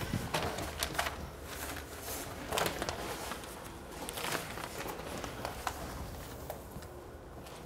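Newspaper sheets rustling and crinkling as they are pulled apart and laid flat on a floor, in short irregular rustles, the loudest about two and a half and four seconds in.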